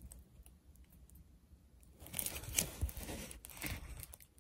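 Crinkling rustle of a plastic-covered diamond-painting canvas being handled, in a few short bursts in the second half.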